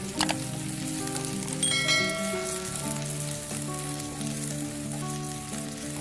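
Oil sizzling steadily as chopped onions and ginger-garlic paste fry in a pan, stirred with a wooden spatula to cook off the paste's raw smell, with a knock about a quarter second in. Soft background music with held notes plays over it.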